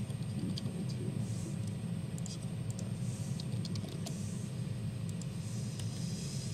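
Computer keyboard typing: irregular single key clicks, some in quick runs, over a steady low room hum.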